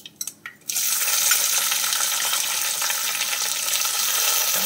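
Chopped shallots dropped into hot coconut oil in a pot: a few light clicks as they go in, then steady, loud sizzling starting under a second in as they begin to fry.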